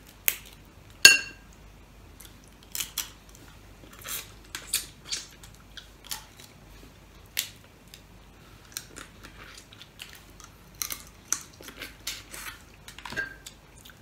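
Steamed blue swimming crab claws being cracked and picked apart by hand: scattered sharp cracks and clicks of shell. The loudest is about a second in and carries a short ringing clink.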